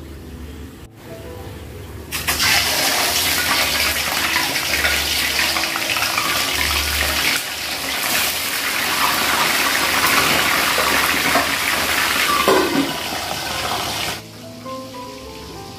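Catfish deep-frying in hot oil in a wok: a loud, steady sizzle that starts suddenly about two seconds in and cuts off shortly before the end. Light background music plays under it.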